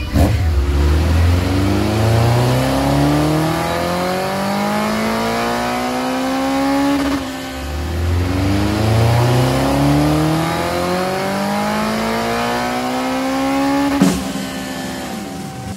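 Honda CB1300SF inline-four, breathing through an R's Gear Wyvern full exhaust, revving under load on a chassis dyno: the engine note climbs steadily twice, with a short dip about seven seconds in. About fourteen seconds in there is a sharp snap and the revs fall away as the power run ends.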